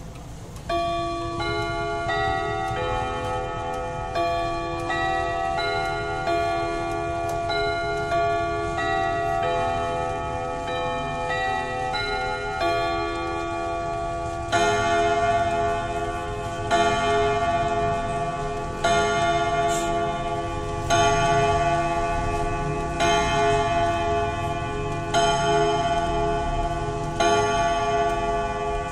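Vedette pendulum wall clock chiming on the hour. For about the first fourteen seconds it plays a tune of single ringing notes. It then strikes the hour, a ringing chord about every two seconds, louder than the tune.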